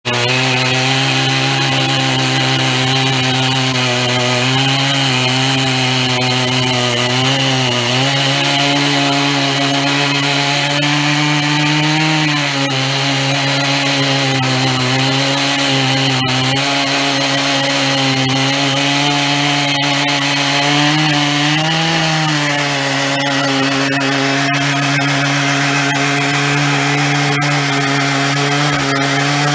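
Stihl MS 880 two-stroke chainsaw with a 105 cm bar, running flat out under load as it rips lengthwise through an oak log in a chainsaw mill: a steady, loud engine note over the hiss of the chain cutting. The pitch sags briefly and recovers a few times as the load on the chain changes.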